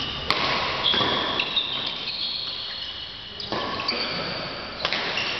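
Badminton play in a large sports hall: a sharp crack of a racket hitting a shuttlecock about a third of a second in, with short high-pitched squeaks of shoes on the court floor, all echoing in the hall.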